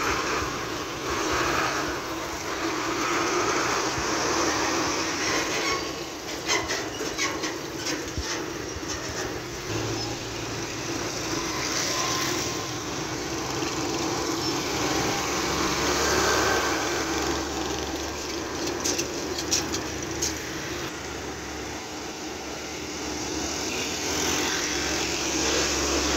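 Heavily loaded diesel trucks driving past one after another, engines running and tyres on the road, with motorbikes in the traffic. Runs of rattling clatter come about a quarter of the way through and again about three-quarters through.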